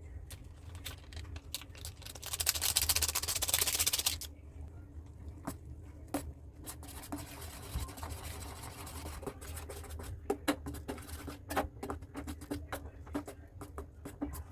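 Kitchen handling sounds while instant noodles are cooked: a loud rush of hissing noise lasting about two seconds, then a run of sharp clicks and scrapes of utensils and packaging over a low steady hum.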